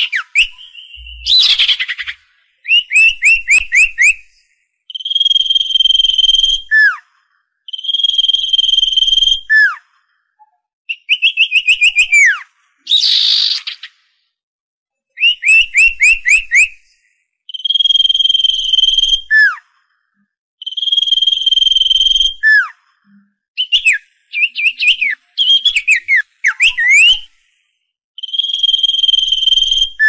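Common iora singing: a long, steady whistled note that ends in a quick downward slur, repeated every few seconds and alternating with fast runs of short whistled notes.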